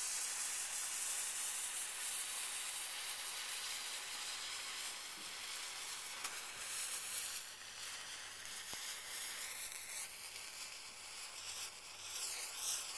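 A burning firework fuse wick sizzling with a steady hiss as it burns slowly, throwing sparks. A faint warbling high sound comes in near the end.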